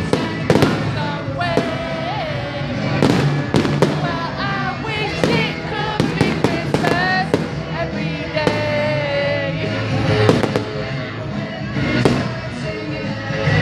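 Display fireworks bursting overhead in a quick, uneven run of bangs and crackles, with music and singing going on underneath.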